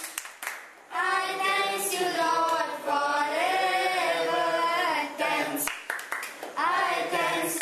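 A group of voices singing a song without instruments, in sung phrases with a short break about five seconds in, and a few hand claps.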